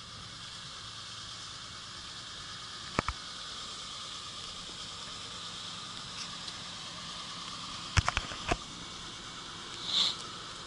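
Steady outdoor hiss with sharp clicks: one about three seconds in, several close together about eight seconds in, and a brief higher noise near the end.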